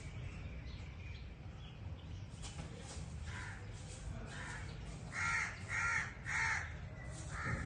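A bird giving a series of short, harsh calls, faint at first, then five louder calls in quick succession near the end.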